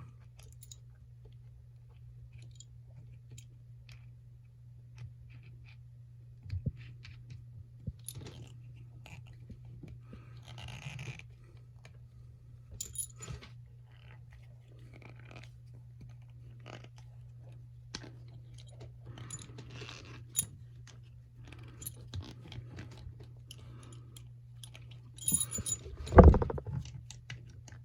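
Scattered small clicks, clinks and scrapes of a metal trick bolt puzzle being handled and twisted, over a steady low hum, with one louder thump near the end.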